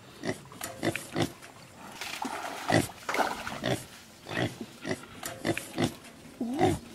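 Wild boar grunting: a run of short grunts, roughly two a second, with a brief rushing noise about two seconds in.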